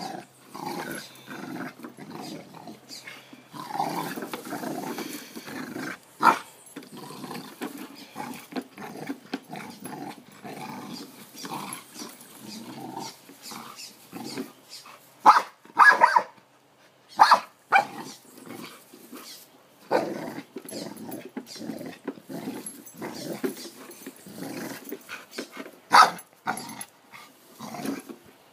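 Pit bull growling in irregular bursts as it bites at and shoves a push lawn mower that is not running, with a few sudden loud sounds scattered through.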